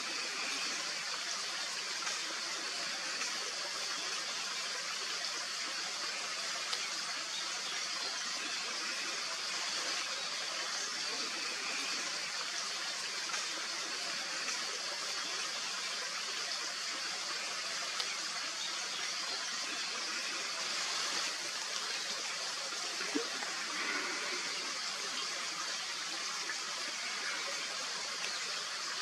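Steady rush of running water, an even hiss strongest in the upper range, with a single faint tap about three-quarters of the way through.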